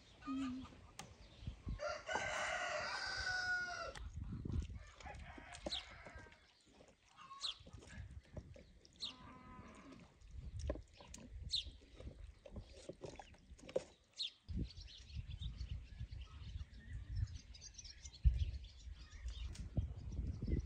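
A rooster crows once, about two seconds in, a call lasting some two seconds. Short high chirps follow through the middle, and low thuds and rumble come near the end.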